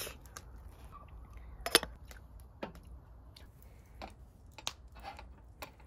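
Scattered light clicks and taps of things being handled, with one sharper click nearly two seconds in.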